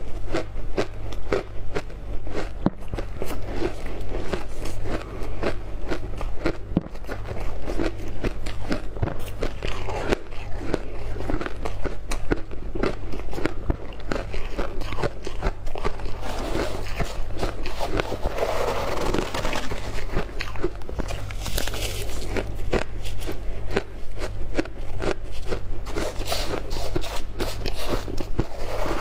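Refrozen shaved ice being crunched and chewed in the mouth, a dense run of crisp crunches close to a clip-on microphone. A steady low hum runs underneath.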